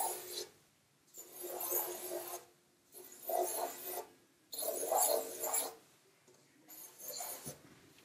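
Felt-tip Sharpie marker rubbing across paper in quick strokes as oval shapes are drawn: about five strokes, each roughly a second long, with short pauses between them.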